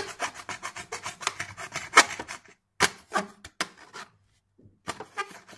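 Kitchen knife blade sawing rapidly back and forth across the edge of a plastic ruler, a quick run of rasping strokes about eight a second. The strokes thin out after about two and a half seconds, stop for about a second, and resume briefly near the end.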